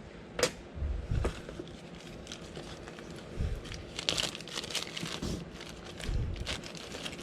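Small objects being handled close by: scattered light clicks and taps with a few soft thuds and a stretch of crinkling about four seconds in, as jewelry pieces are picked through and sorted.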